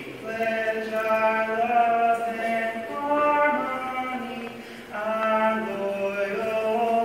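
A man's voice singing slow phrases of long, held notes, with a short break about two-thirds of the way through.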